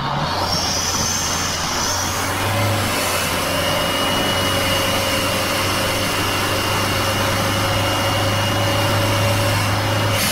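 Cabin sound of a car with a Toyota 2KD four-cylinder turbodiesel cruising fast on a highway: a steady engine hum whose pitch holds level, over road and wind noise.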